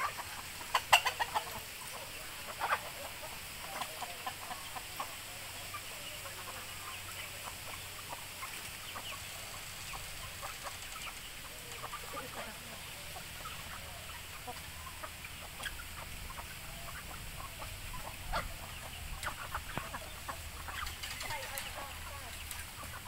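A flock of chickens clucking as they feed, in short scattered calls, loudest about a second in.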